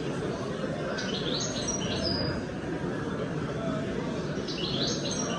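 Caged birds chirping in quick high phrases, once about a second in and again near the end, over a steady murmur of crowd chatter.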